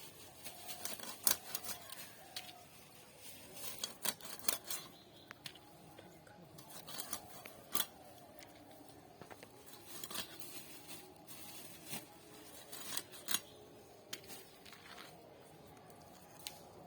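Knife cutting catla fish into pieces: irregular sharp clicks and chops as the blade goes through flesh and bone.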